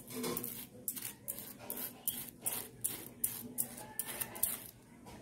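Knife spreading butter across toasted bread, a quick run of short scraping strokes, about three a second.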